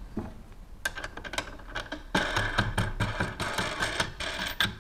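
A metal nut being turned by hand on the threaded spindle that holds a plastic filament spool on the winder: scattered clicks, then denser rattling and clicking of metal against plastic from about two seconds in.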